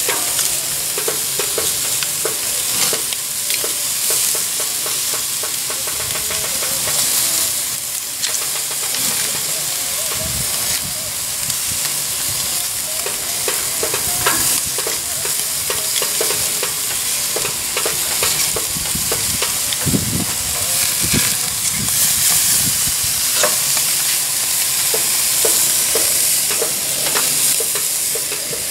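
Thin-cut beef short ribs in Korean barbecue sauce sizzling steadily on a hot grill grate, with frequent sharp clicks and scrapes of metal tongs turning them.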